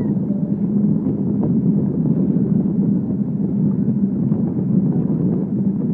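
Steady low rumble of road and engine noise inside a moving vehicle.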